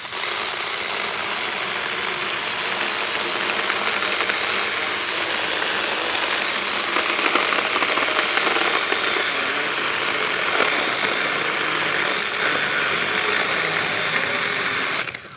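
Saker Mini 20-volt cordless chainsaw with a 4-inch bar running steadily as it cuts through a thick branch, near the limit of what the small saw can cut. It stops suddenly near the end.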